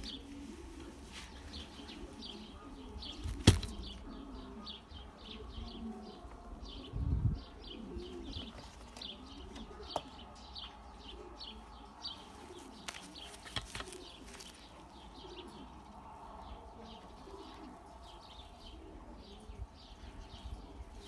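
Pigeons cooing softly under a steady run of small-bird chirps, several a second. A sharp click comes about three and a half seconds in and a brief low thump about seven seconds in.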